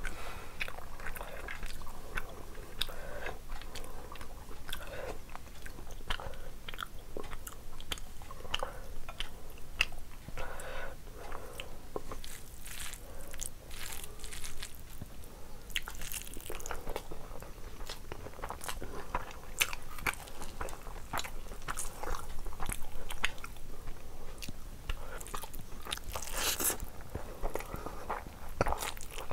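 Close-miked chewing and wet mouth smacks of someone eating rice and egg curry by hand, with many small clicks and squelches from fingers mixing rice and curry on the plate.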